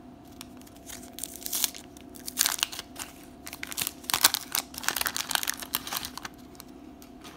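Wax-paper wrapper of a 1991 Donruss baseball card pack being torn open and crinkled by hand as the cards are pulled out. The quick run of crackles and tearing starts about a second in and dies away about a second before the end.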